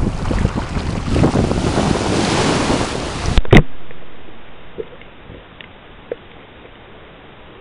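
Small waves washing onto a sandy beach, with wind buffeting the microphone. About three and a half seconds in there is a loud knock, then an abrupt change to a much quieter, muffled underwater hiss with a few faint ticks.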